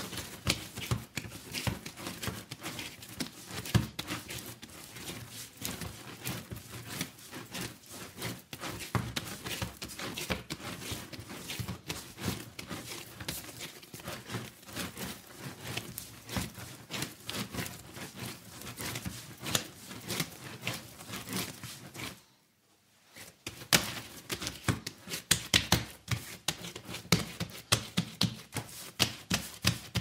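Hands kneading dough: a dense, irregular stream of short clicks and squelches, broken once by a pause of about a second some two-thirds of the way through.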